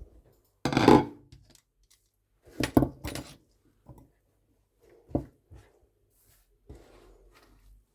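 Kitchen things being handled: a series of separate clatters and knocks, loudest about a second in and again around three seconds, with quieter knocks later.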